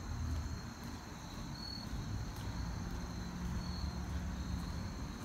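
Steady high-pitched chirring of crickets, over a low rumble and a few soft footsteps on concrete.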